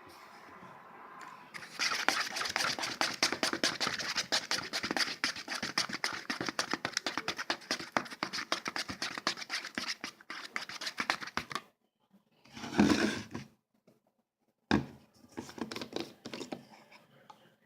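Slime being worked: dense, rapid wet crackling and clicking for about ten seconds, then a short louder burst, a sharp sudden sound, and a few more seconds of crackling.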